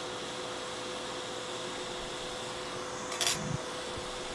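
Hot air rework station blowing at its highest air and temperature setting: a steady rush of air with a low steady hum, heating the solder under a surface-mount chip. A short burst of noise comes about three seconds in.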